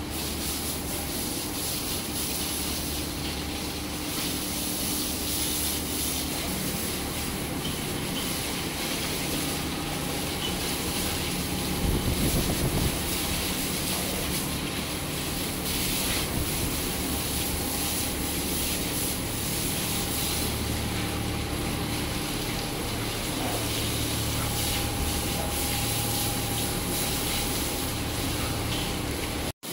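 Water from a hose jet spraying onto bulls' hides and a wet floor, a steady hiss with a low hum beneath, briefly louder about twelve seconds in.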